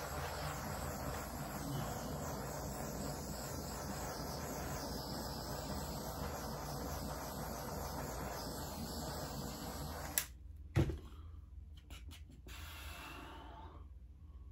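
Handheld butane torch flame hissing steadily while it is passed over wet acrylic paint to pop air bubbles. About ten seconds in, the hiss cuts off with a sharp click, and a second click follows just after.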